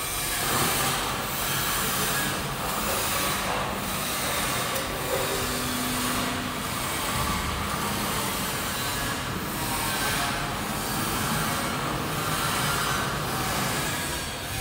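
A vertical form-fill-seal detergent powder packing machine running, a loud steady mechanical hiss and rattle whose high hiss dips in a regular cycle a little slower than once a second.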